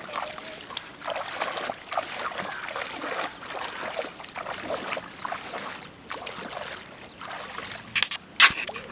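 Bare feet wading through shallow water in a flooded rice paddy: irregular splashing and sloshing with each step. Two sharp, loud knocks near the end.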